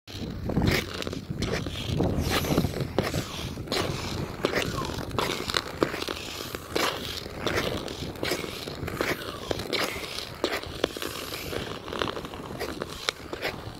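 Ice skate blades scraping and gliding over clear pond ice, with a sharp scrape at each push, about two a second.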